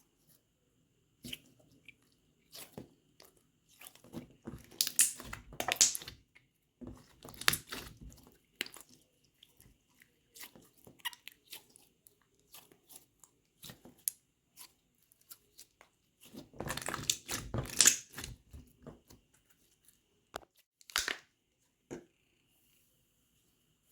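Slime being played with by hand close to the microphone: many quick clicks and pops, coming in denser bursts about four seconds in, near eight seconds, and around seventeen seconds, with sparser clicks in between.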